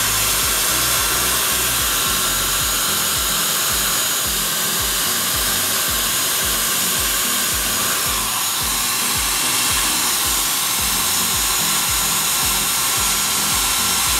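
Handheld craft heat tool blowing steadily, a fan hiss with a thin high motor whine, drying ink and stain on a paper tag.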